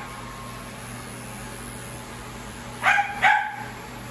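Wahl Bravura mini clippers running with a steady hum while shaving inside a dog's ear, and a dog barking twice in quick succession about three seconds in.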